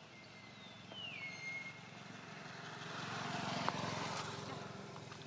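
A motor vehicle passing on the road, its engine and tyre noise swelling to a peak about three and a half seconds in and then fading. Early on, a thin high call slides down in pitch.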